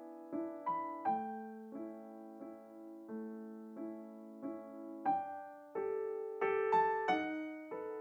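Background music: a slow, gentle solo piano piece, notes struck about every half second and left to ring, growing louder in the last few seconds.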